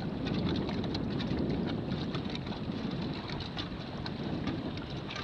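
Lake water splashing and slapping against the hull of a Sunfish sailboat under sail through light chop: a steady wash with many small sharp splashes.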